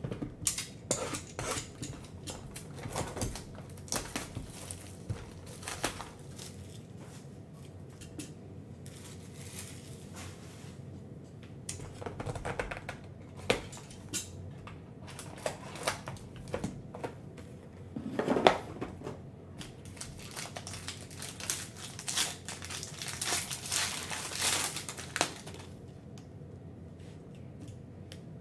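Knocks and scrapes of a sealed cardboard trading-card box being handled and its plastic wrap slit with a box cutter. Toward the end a card pack's plastic wrapper is torn open and crinkles for a few seconds.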